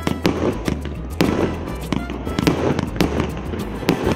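A multi-shot consumer fireworks cake with 1.25- and 1.5-inch shots firing in rapid succession. Sharp bangs of launches and shell bursts come irregularly, two or three a second, over a low rumble.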